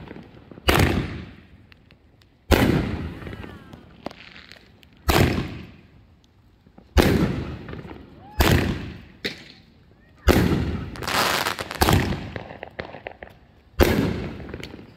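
Aerial fireworks bursting overhead: a string of about ten sharp bangs, one to two seconds apart, each fading out in an echo. Several come close together about halfway through.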